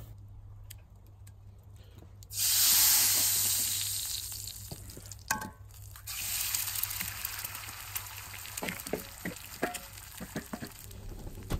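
Hot cast-iron skillet over a wood fire sizzling: a sudden loud burst of sizzling about two seconds in that fades, a sharp tap a few seconds later, then an egg dropped into the pan frying, sizzling again with crackles and pops.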